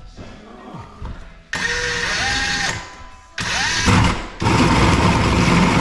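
Power drill motor spinning up with a rising whine in two short bursts, then running steadily under load from about four and a half seconds in.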